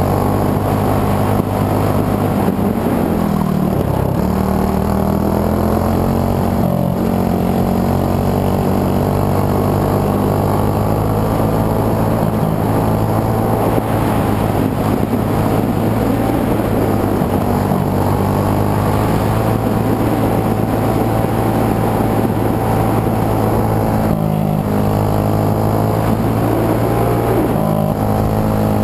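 Racing kart's single-cylinder engine, a Briggs & Stratton World Formula, heard from on board at full effort, its pitch rising and falling with the throttle through the corners. It drops briefly about three seconds in and again near the end before pulling back up.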